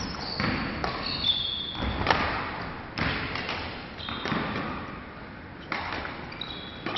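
Badminton rally: sharp racket strikes on the shuttlecock every second or so, echoing in a large hall, with athletic shoes squeaking on the wooden court floor a few times.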